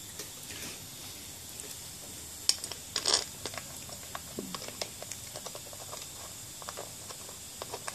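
Light scattered clicks and scrapes of hands handling a metal engine housing cover as it is screwed back into place by hand, with a couple of sharper clicks about two and a half and three seconds in.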